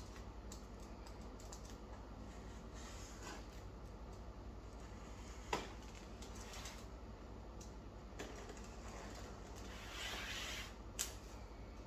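Hands opening a tablet's box and packaging: scattered small clicks and taps of cardboard and plastic, a sharper click about halfway through, a short rustle and another click near the end, over a steady low hum.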